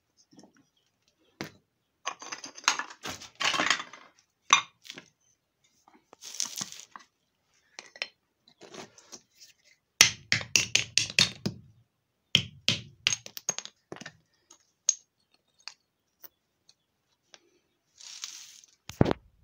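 A small hammer knocking broken stone and mortar into a hole in a concrete floor: runs of sharp knocks and crunching rubble, the densest and loudest run about ten seconds in. A couple of short scraping rushes come in between.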